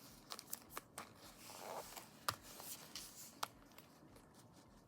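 Cards and small planner items being handled and slipped into a wallet's pockets: a soft rustle of paper and plastic with a few sharp clicks and taps, the loudest about two and a quarter seconds in and another near three and a half seconds in.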